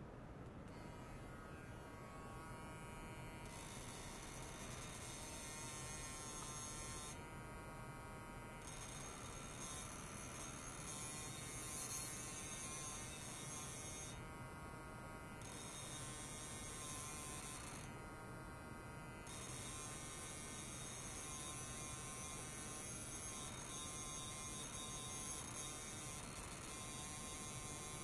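Piezoelectric ultrasonic probe clipped to a metal plate and driven by a function generator, giving off a steady electrical buzz with a high hiss. The hiss drops away three times, for a second or two each.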